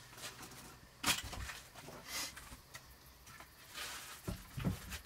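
Wooden boards being handled and fitted against a plank wall: a sharp knock about a second in, scraping and rustling, then two dull knocks near the end.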